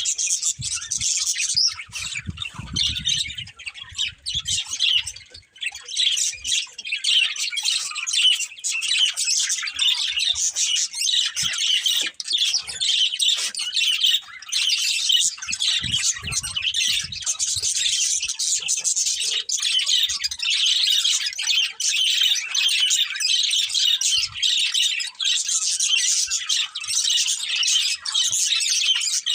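Several budgerigars chirping and chattering together, a continuous, busy stream of high chirps with occasional squawks. A few soft low thumps in the first few seconds.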